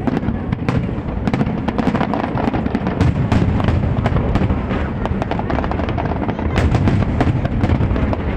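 Large aerial fireworks display: a rapid, continuous barrage of shell bursts and crackle over a steady low rumble, growing heavier about three seconds in and again near the end.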